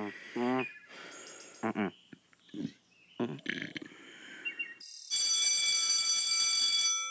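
A few short squeaky chirps, then from about five seconds in a cartoon alarm rings as a steady, high, buzzing electronic tone for about two seconds before fading out.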